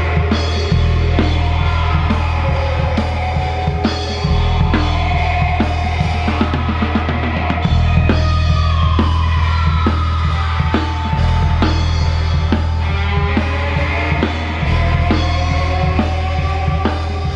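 Psychedelic rock band playing an instrumental passage: a full drum kit with kick and snare keeps a steady beat under long low bass notes and melodic lead lines that slide up and down in pitch.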